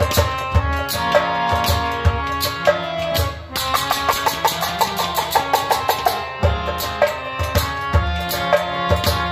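Kashmiri folk music: harmonium playing a melody over a quick hand-drum rhythm, with a short drum roll a few seconds in.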